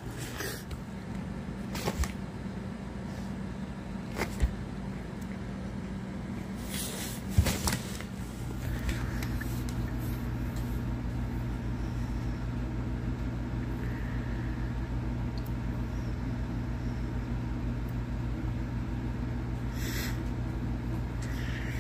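Steady low mechanical hum that grows louder about eight seconds in, with a few short knocks and handling bumps during the first eight seconds.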